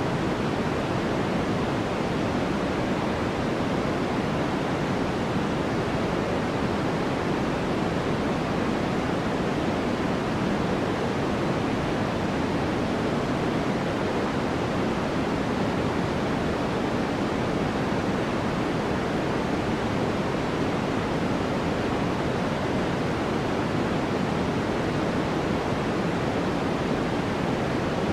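Steady noise track for studying: an even, deep hiss weighted toward the low end, unchanging, with no distinct events.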